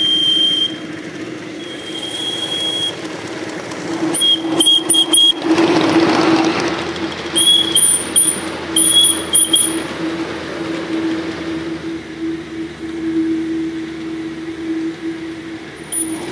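Ride-on miniature live-steam train running on its track. A steady hum carries through, broken by intermittent high-pitched squeals and a few clicks. About five to six seconds in there is a brief rush of noise.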